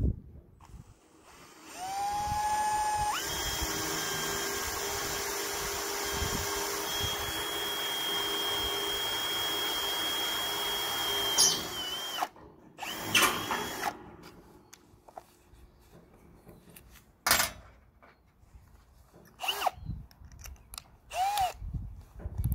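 Cordless drill boring a hole into a steel beam: the motor speeds up, then runs steadily for about ten seconds, with a high steady whine joining in during the second half. It stops about halfway through, followed by a few short separate sounds.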